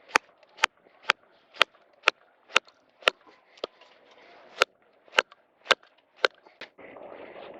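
Firewood being split by batoning: a baton striking the back of a knife blade in sharp, regular knocks about twice a second. Near the end the knocks stop and a rougher, steady noise takes over.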